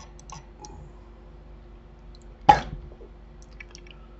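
A man's single short cough about halfway through, with a few faint light clicks before and after it over a low steady hum.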